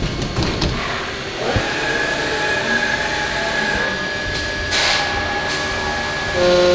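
CNC vertical machining center starting a cycle: a few clicks as the enclosure door shuts, then the spindle spins up with a rising whine that settles into a steady high tone. Coolant nozzles spray onto the aluminium plate with a short hiss about five seconds in, and a louder, steadier machine sound with several tones sets in near the end as the skim cut to flatten the warped plate begins.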